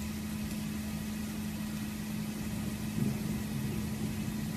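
A steady machine hum with one constant low tone under it, holding unchanged throughout.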